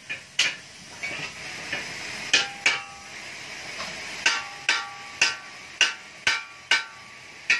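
Sharp metallic ticks, about ten at irregular intervals, each leaving the steel muffler shell ringing briefly, while a baffle is welded inside it, over a low steady hiss.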